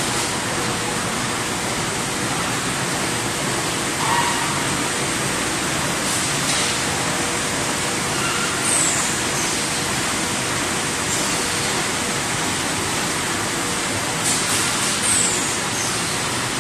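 ZYKM IV 900x2000 printing machine line running in production: a steady, even machine noise with a faint steady hum. A few short clunks and brief high squeaks sound over it, around four, six and fourteen seconds in.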